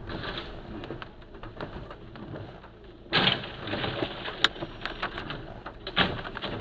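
A white van crashing over onto its side: a sudden loud crash about three seconds in, followed by continuing noise with sharp knocks about a second later and again near the end as it slides and sheds debris.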